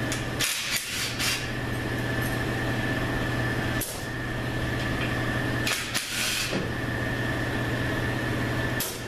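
Power ratchet run in several short bursts on the bolts of an A4LD automatic transmission's rear housing, over a steady mechanical hum.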